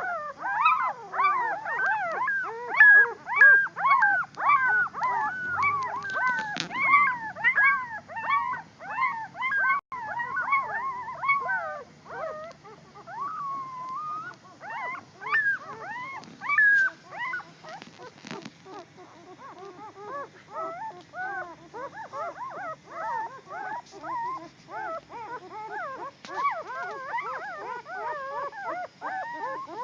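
A litter of puppies whining and yelping, many short high cries overlapping without pause; the puppies are complaining while being put out to sunbathe.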